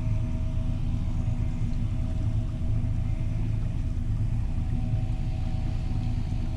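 Steady low rumble with a constant hum from the bass boat's bow-mounted electric trolling motor.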